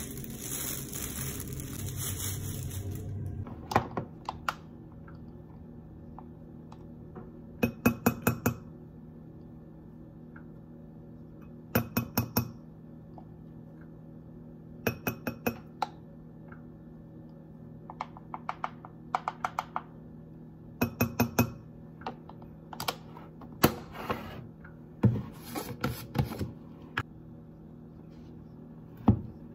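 Metal teaspoon clinking against a drinking glass and plastic powder containers in short bursts of three to five quick taps every few seconds, as spoonfuls of matcha powder and coconut milk powder are scooped and tapped into the glass.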